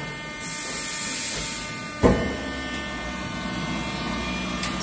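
Haas VF-2SS automatic tool changer indexing in reverse, over the machine's steady electrical hum: a hiss, then a sharp clunk about two seconds in and a steady mechanical running noise after it.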